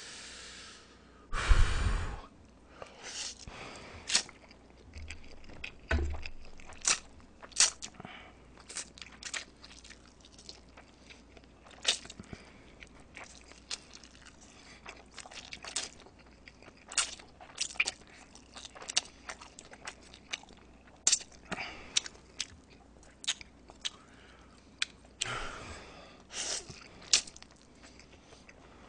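Close-miked eating of Chapagetti black-bean instant noodles: wet slurping and chewing with many sharp smacking clicks, and louder noisy slurps about a second and a half in and again near the end.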